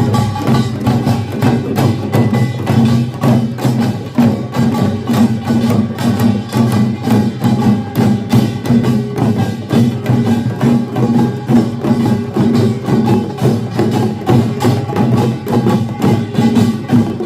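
A Korean pungmul folk percussion band playing, with gongs and drums struck in a fast, steady, unbroken rhythm.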